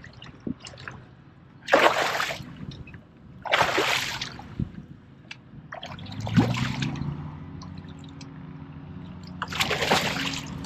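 Water splashing in four loud bursts, with small drips and trickles between: a hooked bass thrashing at the surface during the fight. A steady low hum comes in about six seconds in.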